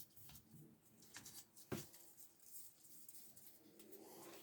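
Near silence with a few faint clicks and taps of hand work on a small engine, one sharper click a little under two seconds in.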